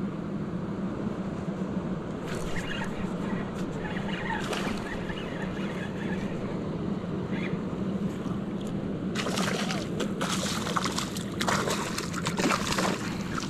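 Steady rush of water with a low hum, joined by a run of splashing and clicks from about nine seconds in.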